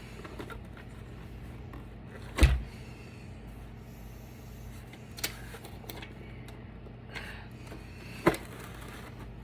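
Knocks and clicks of a battery backup unit being dismantled by hand on a table. The loudest is a heavy thump about two and a half seconds in, with a sharp knock near the end and a few lighter clicks between, over a steady low hum.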